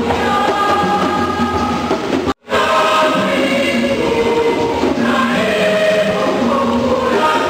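A choir singing a hymn in sustained, held notes. The sound cuts out completely for a moment about two and a half seconds in.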